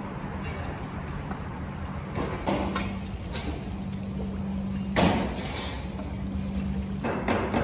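Steady rumbling noise with a low hum around a huge pilaf cauldron, broken by a few scrapes and knocks of a long metal paddle working the rice in the pot; the loudest knock comes about five seconds in, with a quick run of them near the end.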